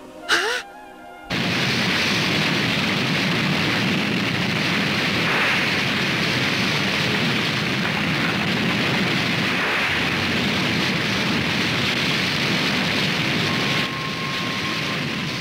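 Cartoon sound effect of a forest fire: after a brief sharp whoosh, a loud, steady rushing roar of flames sets in about a second in and holds, easing slightly near the end.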